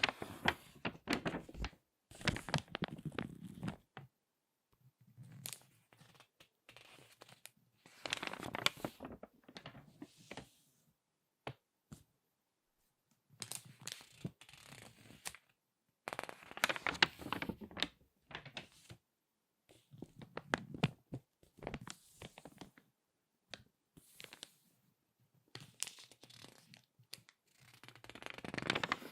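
Crinkly glossy magazine pages being turned and squeezed by hand, giving bursts of crackling paper crinkles a second or two long with short quiet gaps between them.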